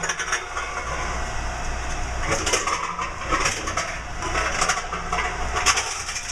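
Tomra T-53 reverse vending machine running as it takes in cans, a steady low hum with clattering knocks about once a second as the cans are carried through and crushed.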